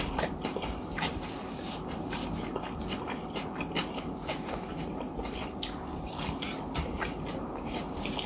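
Close-miked chewing of a mouthful of rice, with frequent irregular wet mouth clicks and smacks. A spoon now and then touches the plate.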